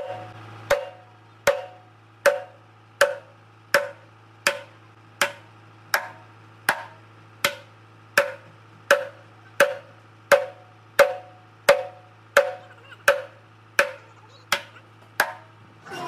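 Heavy hammer blows on the steel drum of a Dynapac road roller, an even series of about twenty strikes roughly three-quarters of a second apart, each with a short metallic ring, over a steady low hum. The blows are part of repairing the crooked roller drum.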